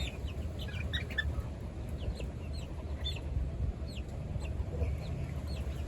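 Young chickens peeping: many short, high chirps sliding downward, scattered irregularly, over a steady low rumble of wind on the microphone.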